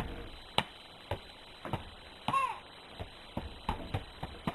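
Rubber bouncy ball being bounced against a wall and floor: a run of sharp knocks about two a second, coming faster near the end, with a brief squeak about halfway through.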